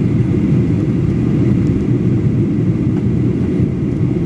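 Steady low rumble of a Boeing 737-800 airliner in flight, heard from inside the cabin: engine and airflow noise.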